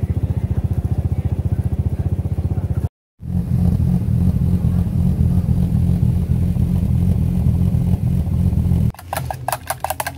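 Off-road 4x4 engine running loud and close, in two stretches split by a short cut about three seconds in, the second louder. Near the end it gives way to a quick run of sharp clicks.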